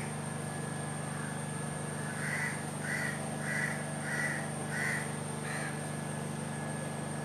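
A crow cawing, a run of six short caws about 0.6 s apart starting about two seconds in.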